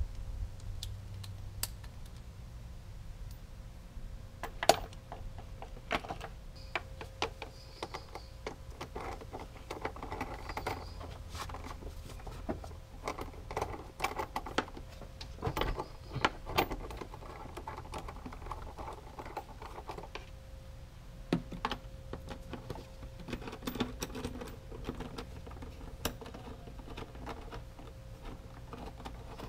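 Irregular plastic clicks, taps and rattles as the air intake box and snorkel of a Honda Civic are handled and snapped back into place, with a few sharper knocks standing out.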